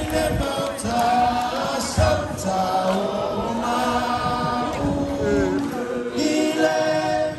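A choir singing a carol in several parts, holding long notes in harmony.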